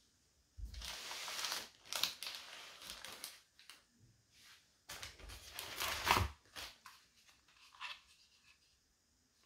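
Packaging being handled and torn open: two bouts of crinkling and tearing, each a few seconds long, with sharp clicks and small knocks in between.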